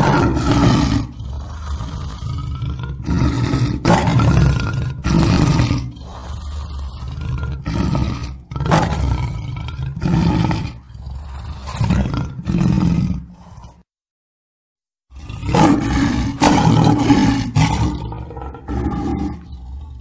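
Lion roaring: a long series of loud roars, about one a second. They break off for just over a second of dead silence past the middle, then start again.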